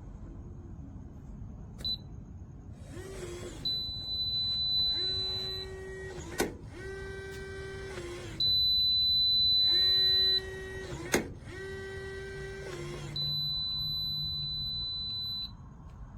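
TEEHO TE002 electronic keypad deadbolt operating: three long high-pitched beeps and four short whirring runs of its small bolt motor, with a couple of sharp clicks as the bolt throws.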